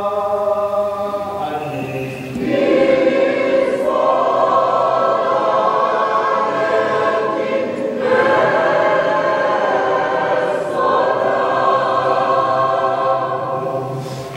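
Orthodox church choir singing liturgical chant in held chords, the harmony shifting to new notes a few times.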